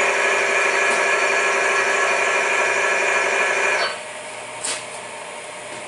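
Bench friction test rig: an electric motor spins a bearing against a weighted test surface in an oil bath with micro-ceramic additive, running loud and steady with several steady tones over a rough hiss. A little under four seconds in the sound drops sharply as the load comes off, leaving the motor running quieter. A click follows, and a sharp knock comes near the end.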